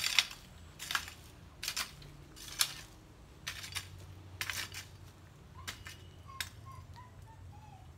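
Metal hoe blade chopping and scraping into garden soil, about one stroke a second, each a sharp scrape; the strokes stop about two-thirds of the way through.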